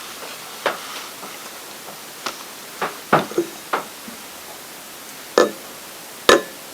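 Scattered sharp knocks and clicks, about eight at irregular intervals, the loudest two near the end, over a steady hiss.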